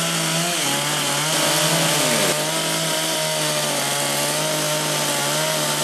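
Stihl MS192 C-E two-stroke chainsaw with quarter-inch pitch full-feature chain, running at high revs and carving into wood. The engine note drops as the chain bites about half a second in, swells briefly just before two seconds in, then holds steady.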